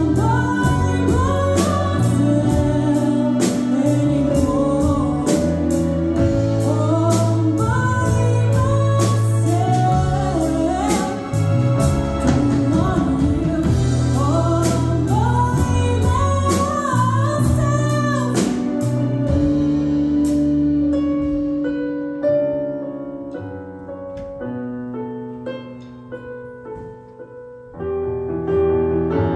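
Live band playing a soft-rock ballad: drums with cymbal hits, bass, keyboards and a gliding lead melody. About twenty seconds in the drums drop out, leaving quieter sustained keyboard notes, and the full band comes back in near the end.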